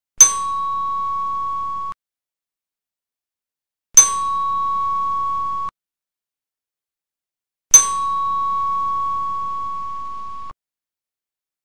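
Three bell-like dings, spaced about four seconds apart, each a sharp strike that rings on one clear tone for a couple of seconds and then stops abruptly; the last rings longest, fading slightly before it cuts off.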